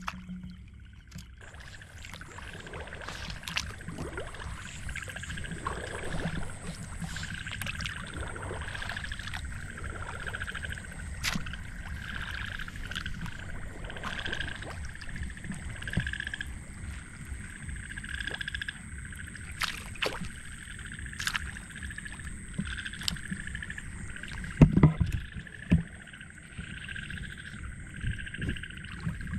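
A frog chorus at night: many frogs calling over and over without a break, over a steady high whine. There are a few sharp knocks, the loudest about 25 seconds in.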